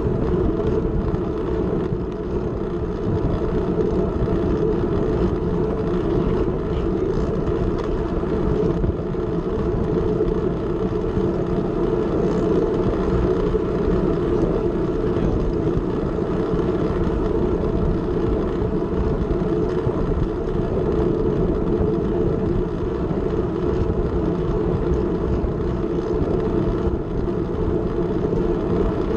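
Steady rush of wind and tyre rumble picked up by a camera mounted on a racing bicycle riding at race speed, loud and unbroken.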